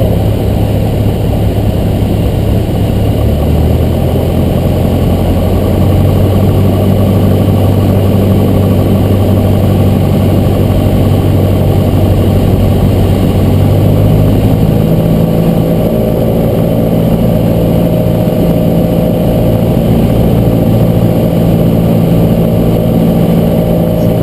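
Cessna 172's piston engine and propeller droning steadily as heard inside the cockpit, its tone changing about three seconds in and again about fifteen seconds in as the power setting changes.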